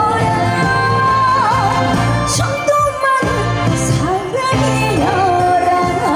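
Trot song performed live: a woman's voice singing long held notes with wide vibrato over band accompaniment. The bass drops out briefly about three seconds in.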